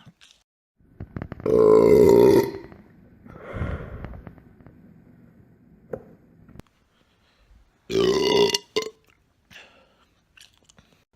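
A man belching from carbonated soda gas. There is a long, pitched burp about a second and a half in, a lower, rougher one around three and a half seconds in, and another long, pitched burp about eight seconds in.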